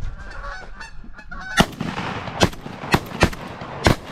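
Geese honking, then five shotgun blasts in quick succession starting about a second and a half in, fired at a passing flock of geese.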